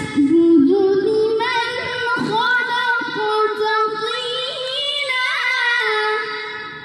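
A boy's voice reciting the Quran (tilawah) in the Bayyati maqam: long, high held notes with quick ornamental turns. It fades near the end.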